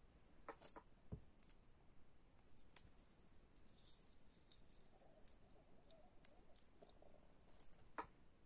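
Near silence: room tone with a few faint, scattered clicks and a soft thud about a second in.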